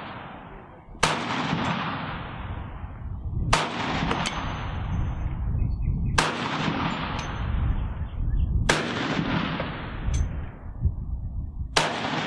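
CMMG Anvil .458 SOCOM rifle fired five times, slow semi-automatic shots about two and a half seconds apart, each with a long fading tail.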